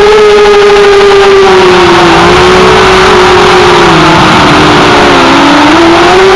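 FPV quadcopter's electric motors and propellers whining loudly, heard from the camera mounted on the drone, with rushing air behind. The pitch sags gradually, dips lowest about five seconds in, then climbs again as the throttle changes.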